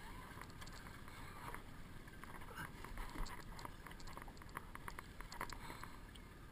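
Small aluminium boat on choppy water: a low steady rumble with scattered light ticks and taps.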